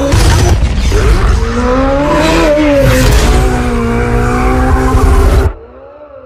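Ferrari 488 GTB twin-turbo V8 revving hard with tyres squealing, the engine note rising, falling, then holding steady. About five and a half seconds in it drops suddenly to a much quieter engine sound.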